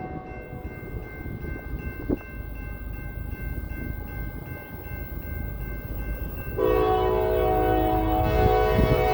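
Freight locomotive's multi-chime air horn falls silent, leaving the low rumble of the approaching train and a steady high ringing from the grade-crossing bell, with one sharp knock about two seconds in. About two-thirds of the way through, the horn sounds again in a loud, long chord that is still blowing at the end.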